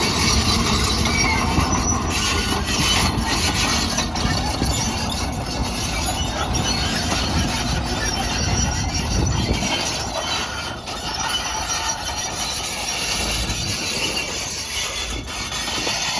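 Caterpillar 313F hydraulic track excavator running and working: a steady, dense machine noise with a few knocks.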